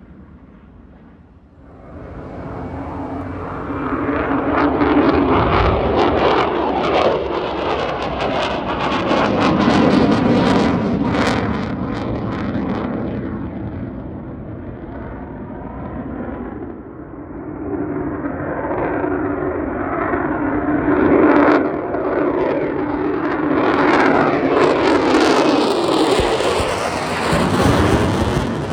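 Military jet aircraft taking off, their jet engine noise rising sharply about two seconds in, easing around the middle, then building into a second loud swell near the end.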